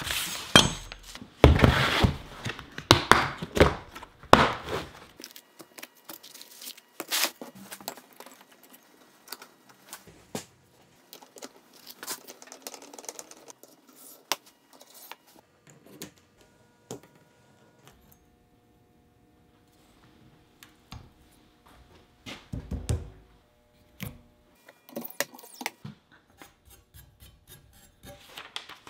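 Intermittent clicks, knocks and rattles of hands handling a knife and metal tool parts, loudest in the first few seconds, as a Wicked Edge sharpener's clamp and angle arms are adjusted with a hex key. Near the end, a quick run of light rustles and cuts as a sheet of paper is sliced against the knife edge.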